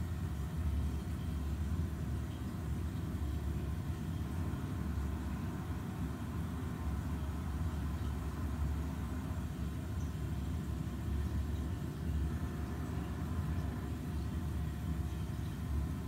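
Steady low rumble with no distinct calls or knocks over it.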